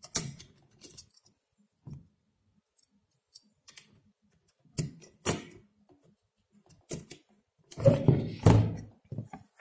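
A plastic CPU-cooler backplate clicking and tapping against the back of a motherboard as it is positioned over the socket, in a handful of separate clicks. About eight seconds in, a louder clatter as the board itself is lifted and handled.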